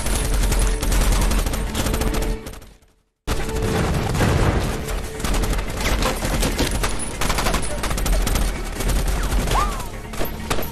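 Sustained automatic gunfire from several machine guns and rifles, dense rapid shots overlapping with one another. The sound drops out to silence for a moment about three seconds in, then the heavy firing resumes.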